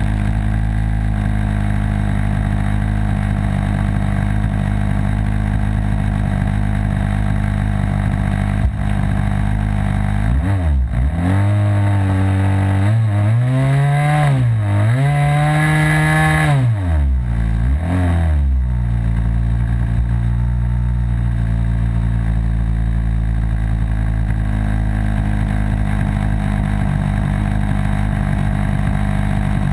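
Model aircraft's O.S. 55 AX two-stroke glow engine idling steadily, heard up close from the plane itself. About a third of the way in it is revved up and down several times over some eight seconds, then drops back to idle.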